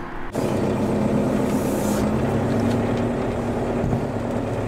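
Mazda Bongo van driving, heard from inside the cab: steady engine hum under road and tyre noise. It starts abruptly just after the start.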